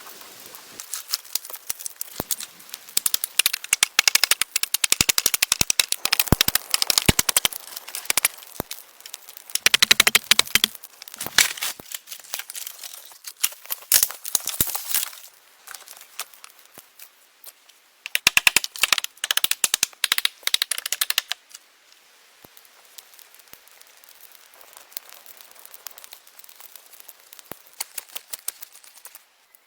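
Dry wood crackling and snapping in dense bursts of sharp cracks, with quieter pauses between and only scattered cracks near the end.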